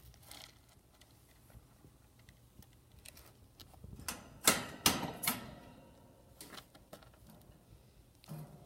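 A ferret with a cold sneezing: a quick run of three or four sharp sneezes about four seconds in, amid faint scattered clicks.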